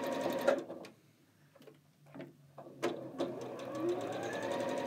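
Sewing machine stitching a quilt seam, stopping about half a second in with a click. A few light clicks follow during the pause, and it starts stitching again about three seconds in.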